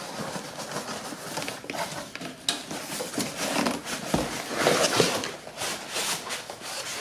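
Cardboard box and foam packing rustling and scraping as a desktop computer case is pushed out of its box, with a sharp knock about two and a half seconds in and a busier burst of scraping near five seconds.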